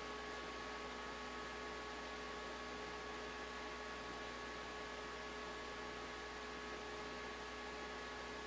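Steady electrical hum with a few constant whining tones over a faint hiss, unchanging throughout.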